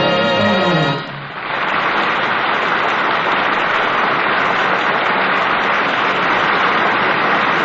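The orchestra's final chord ends about a second in, and a studio audience then applauds steadily.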